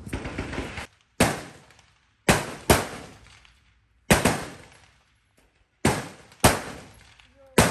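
Rifle shots on a firing range: about seven sharp reports at irregular intervals, each trailing off in echo.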